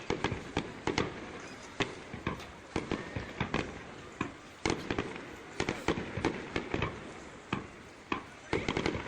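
Fireworks display: a continuous barrage of sharp bangs from shells bursting, some single and some in rapid clusters of reports, heard through a smartphone microphone.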